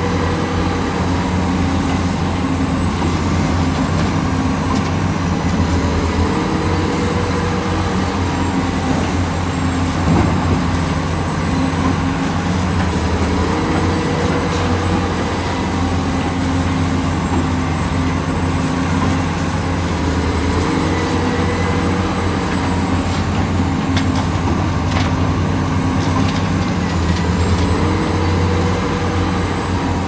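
Heavy diesel excavator engine running steadily under load. Its pitch rises briefly about every seven seconds, in a repeating work cycle.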